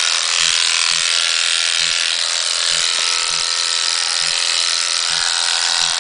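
Corded electric sheep-shearing clippers running steadily as they cut through a sheep's fleece, a loud constant buzz.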